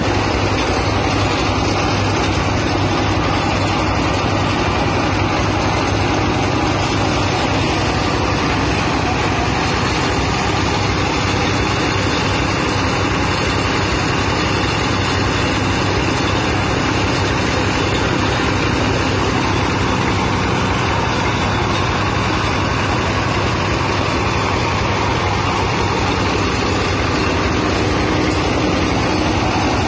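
Peanut-shell grinding mill running, driven by a small stationary engine: a steady, loud engine hum under the even rush of the spinning grinder.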